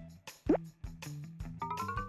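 Light electronic background music, with a short cartoon plop sound effect that drops quickly in pitch about half a second in.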